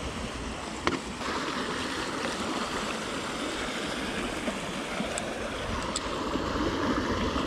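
Steady rush of flowing river water, with one sharp click about a second in.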